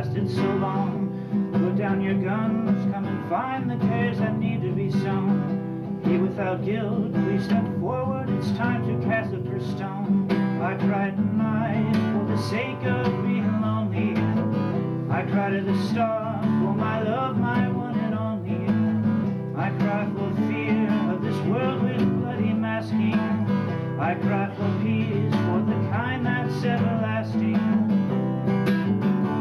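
Solo steel-string dreadnought acoustic guitar played live, a steady flow of picked notes and chords ringing over sustained bass notes.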